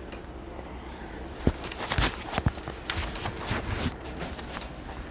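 Irregular clicks and knocks of plastic Lego pieces as a Lego butterfly knife (balisong) is handled, starting about a second and a half in and thinning out near the end.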